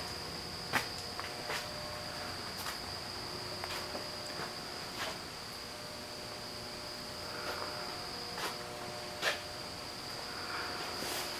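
Quiet workshop room tone with a steady high-pitched whine throughout and a few faint, irregular knocks.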